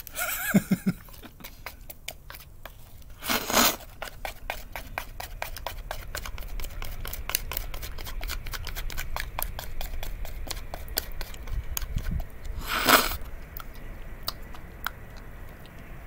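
Close-up eating sounds of a person eating sticky natto with chopsticks: a dense run of small clicks and smacks, broken by two short breathy bursts, one about three seconds in and one near the end.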